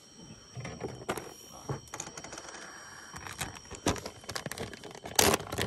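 Irregular clicks and knocks of fishing tackle being handled in a wooden boat, with a louder clatter about five seconds in.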